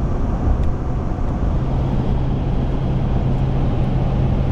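Steady road and engine noise heard from inside a moving four-wheel-drive vehicle, with a low steady drone joining in about a second and a half in.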